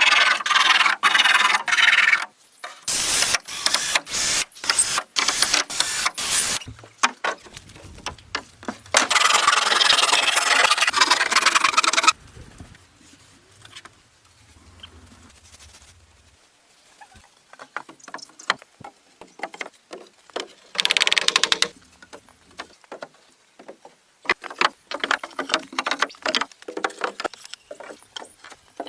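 Wood being worked by hand: bursts of scraping and rasping, with one steady rasp of a few seconds, a quieter stretch in the middle and quick knocks and clicks near the end.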